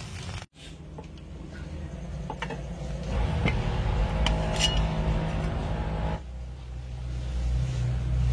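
A few light metallic clinks as an aluminium cooking pot's lid is handled by its knob, over a steady low rumble.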